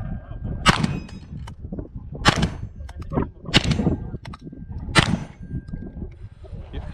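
Four shots about a second and a half apart, each answered by the clang of a struck steel target, with a thin ringing left hanging after several of them.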